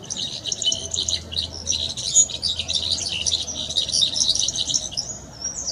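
Brown-backed solitaire singing: a dense, fast run of high twittering notes lasting about five seconds, ending in a short sliding whistle.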